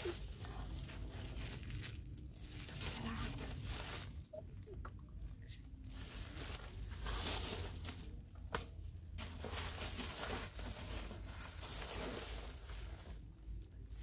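Clear plastic packaging of bathroom mat sets crinkling and rustling as the sets are handled and hung back on a wire display rack. A single sharp click comes about halfway through.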